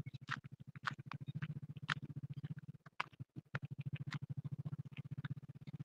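Faint low buzzing hum, pulsing rapidly, with scattered sharp clicks: background noise from a participant's open microphone on a video call.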